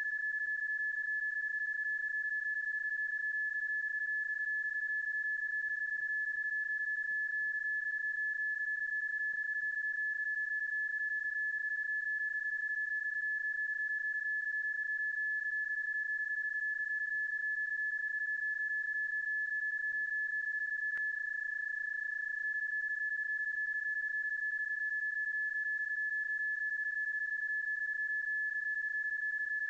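PSK31 digital-mode audio tone, a stretched and looped sound effect standing in for the real signal: one steady, unbroken tone, with a brief glitch about two-thirds of the way through.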